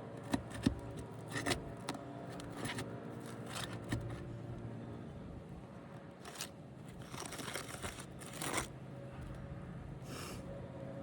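Scraping, rustling and a few light knocks from hands and tools working on asphalt roof shingles, over a steady low hum. The knocks come in the first few seconds and the longer scraping comes later.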